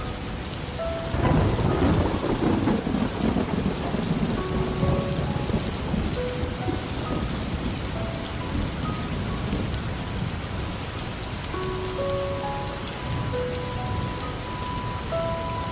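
Steady rain falling, with a roll of thunder that breaks about a second in, is loudest for the next couple of seconds, then rumbles away slowly.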